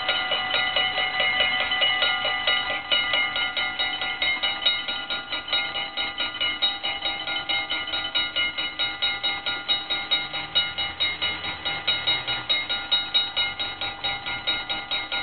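The two mechanical bells of a Dutch level crossing ring in a steady rhythm of rapid strikes, several a second, with a ringing tone behind them. They are the crossing's warning that a train is approaching.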